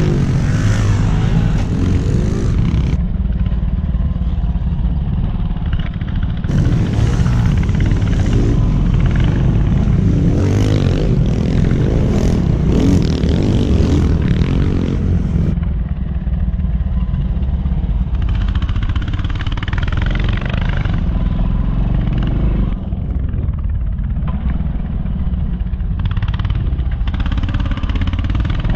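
Small four-stroke pit bike engines running, the sound changing abruptly every few seconds.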